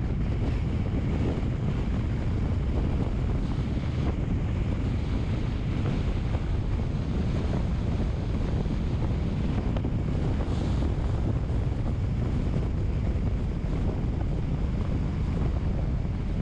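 Steady wind noise buffeting the microphone: a constant low rumble with a thinner hiss above, unchanging throughout.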